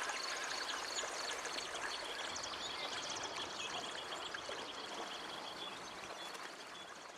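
Outdoor nature ambience: a steady hiss with repeated trains of rapid, high-pitched chirps from small animals, fading out slowly.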